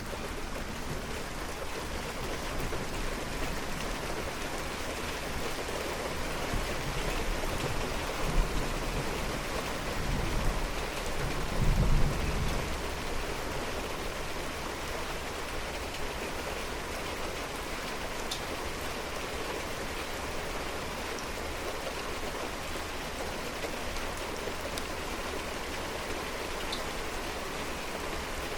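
Steady rain falling, a continuous hiss. Low rolls of distant thunder rumble through the first half, loudest about twelve seconds in, and then fade under the rain.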